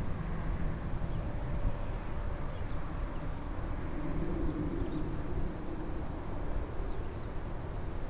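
Distant airliner's engines humming steadily, the hum growing a little stronger about halfway through, under a low rumble of wind buffeting the microphone.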